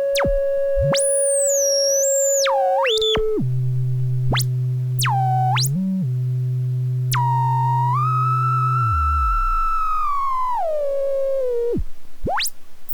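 Modular synthesizer oscillators held on steady tones that jump and glide in pitch, with quick swoops up and down through the range. A low drone comes in for a few seconds in the middle, and a bright held tone rises and then slides down near the end.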